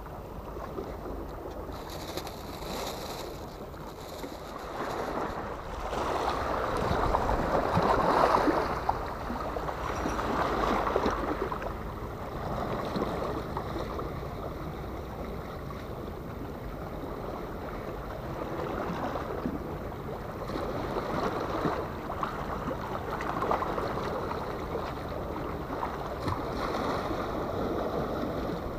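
Small sea waves washing and splashing against breakwater rocks, swelling louder about seven or eight seconds in and easing off again.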